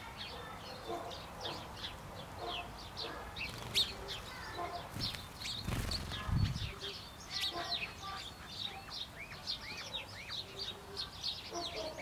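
A flock of sparrows chirping continuously in quick short notes, with a brief low rumble about six seconds in.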